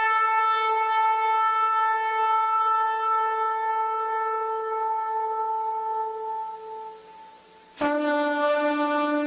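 Shofar blown in one long held blast that fades away about seven seconds in. After a brief break, a new blast starts sharply on a lower note.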